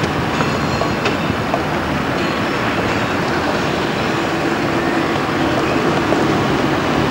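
Engine and road noise of a moving car heard from inside the cabin: a steady rumble, with a low hum that grows stronger about halfway through.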